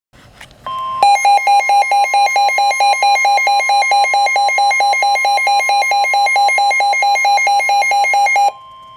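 Emergency alert tones for a severe thunderstorm warning. A steady alert tone starts just before a second in. From about a second in, a loud electronic alarm beeps rapidly, about four times a second, and stops abruptly near the end, leaving the steady tone.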